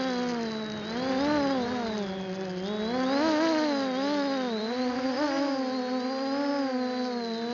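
MJX Bugs 6 quadcopter's electric motors and propellers whining in flight, heard from its onboard camera. The pitch rises and falls every second or so as the throttle changes.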